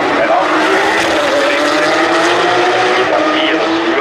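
Porsche 911 GT3 Cup race cars' flat-six engines running hard at high revs as the cars pull away from a tight corner; several engine tones overlap and hold fairly steady.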